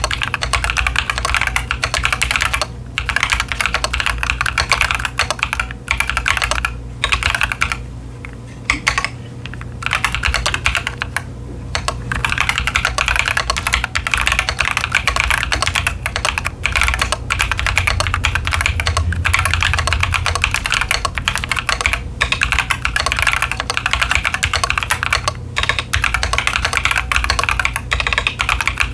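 Fast continuous typing on a Keychron Q10 mechanical keyboard with TTC Chaotic Panda tactile switches and ASA-profile doubleshot PBT keycaps, a dense run of keystroke clacks broken by a few short pauses.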